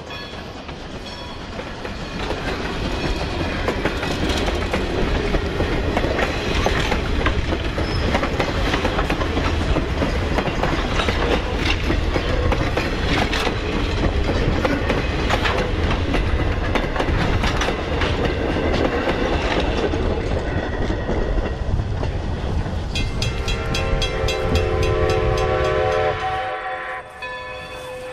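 Passenger coaches rolling past close by: wheels clicking over rail joints over a steady rumble. About 23 seconds in a steam locomotive whistle blows for about three seconds.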